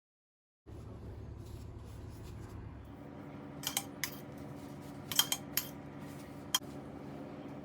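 A handful of short, sharp clicks or snips, irregularly spaced, over a steady low hum that starts about a second in.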